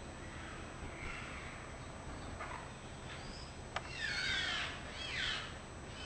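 Maroon-bellied conures giving harsh, screeching calls: a couple of faint ones first, then two loud ones about four and five seconds in, with another starting at the very end. A single sharp click comes just before the loud calls.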